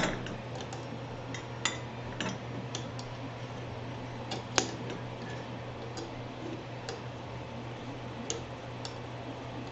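Scattered small clicks and light metallic taps of screws and roller wheels being fitted to the Ender 3's bed carriage by hand, with one sharper click about four and a half seconds in, over a steady low hum.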